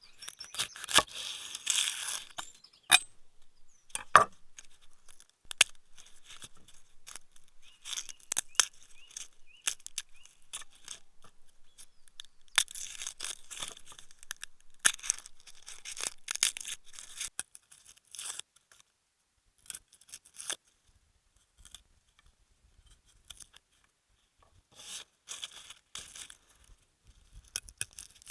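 Food preparation by hand: irregular crisp cutting and tearing sounds with sharp clicks, pausing briefly about two-thirds of the way through.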